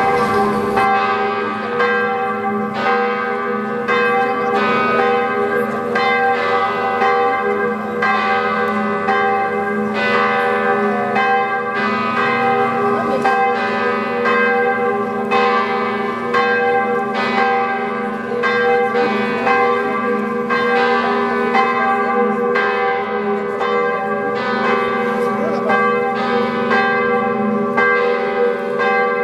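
Church bells pealing: several bells striking over and over, about once a second or a little faster, their tones ringing on and overlapping between strikes.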